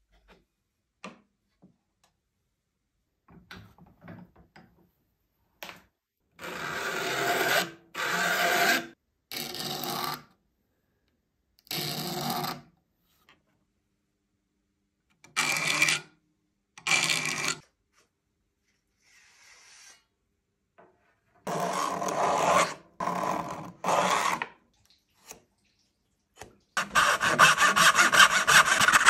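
A saw file rasping across the teeth of a dovetail saw in about nine single strokes, in groups of one to three with pauses between. Near the end the freshly sharpened dovetail saw cuts into wood with quick back-and-forth strokes.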